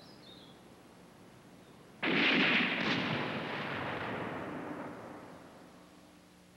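A single loud gunshot about two seconds in, with a long echoing tail that dies away over about three seconds.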